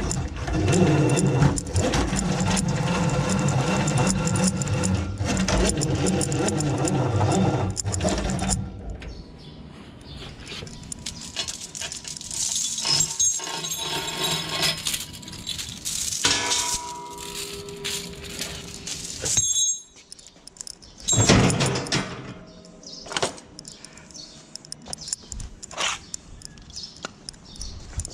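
An engine running steadily, cutting off about eight seconds in; after that, scattered metallic clinks and rattles with a few louder knocks, like chain and steel parts being handled.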